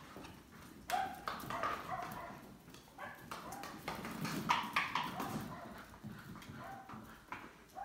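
12-week-old puppies playing: claws clicking and scrabbling on a wooden floor, with several short high-pitched yips scattered through.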